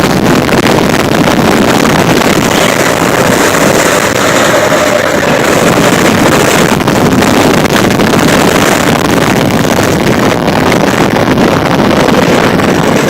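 Predator 212cc single-cylinder four-stroke go-kart engine running steadily under way, with wind buffeting the microphone.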